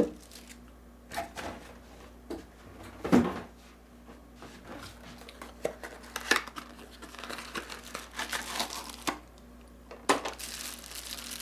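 Clear plastic packaging bags crinkling as they are handled, with a few knocks of parts and a box on a desk, the loudest about three seconds in; the crinkling grows busier in the second half.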